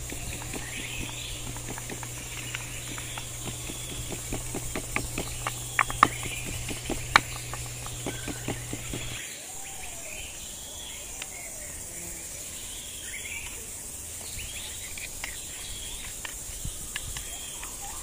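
Wooden pestle pounding chili peppers in a ceramic bowl: a quick run of knocks, with two sharp, loud strikes about 6 and 7 seconds in. About halfway through the pounding stops and birds chirp over outdoor insect noise.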